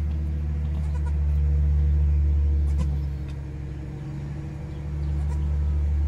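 A steady low engine-like hum, easing off briefly in the middle, with faint goat bleats over it.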